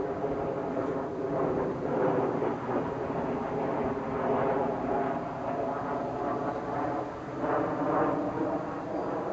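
A steady engine-like drone with a low noisy rumble beneath it, swelling and fading in loudness.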